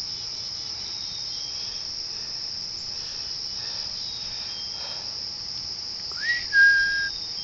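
Insects trilling steadily in a high, continuous chorus. Near the end a single whistle-like note rises and then holds for under a second.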